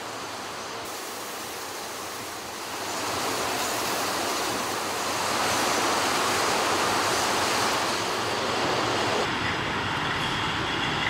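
Steady roar of a glass bottle production line, machinery and gas burners running together. It grows louder about three seconds in and changes character about nine seconds in.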